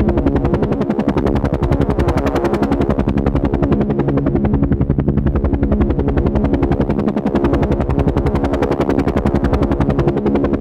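Helicopter rotor chopping steadily with the turbine's drone underneath, a fast, even beat of blade slaps.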